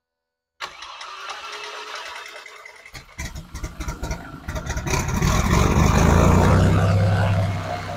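Lycoming piston aircraft engine, cowling off, being started: the starter cranks unevenly for a couple of seconds, the engine catches about three seconds in with ragged firing, runs up louder, and settles into a steady idle near the end.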